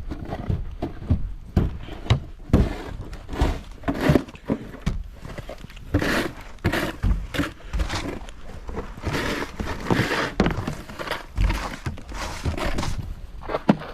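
Irregular crunching and scraping in snow, a few sharp noisy strokes a second, busiest in the middle.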